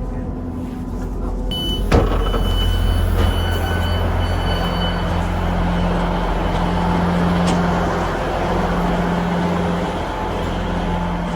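A GWR three-carriage train running: a steady low rumble and engine hum, with a sharp knock about two seconds in and a faint high squeal for a few seconds after it.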